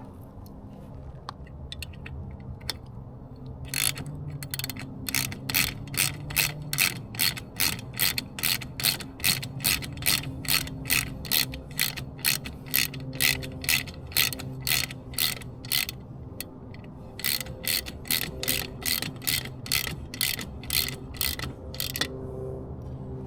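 Socket ratchet clicking at a steady two to three clicks a second as 12 mm bolts are run in, in two long runs with a short pause between them.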